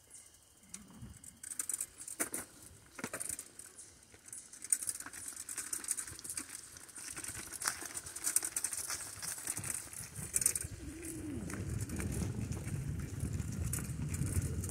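Bicycle riding along a dirt forest trail: tyres crunching over the ground with scattered clicks and rattles, and a low rumble that builds from about ten seconds in.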